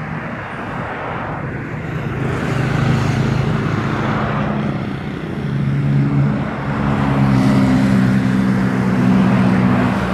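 Busy road traffic going past close by: cars and motor scooters, with tyre noise and a steady low engine hum that swells about two seconds in and stays to the end.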